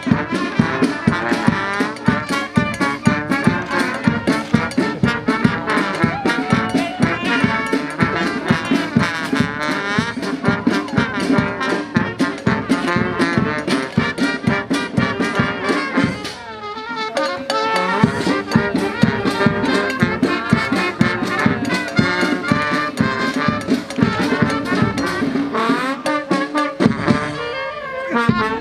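Brass band music with a fast, steady drum beat. The music drops away briefly about sixteen seconds in, then starts up again.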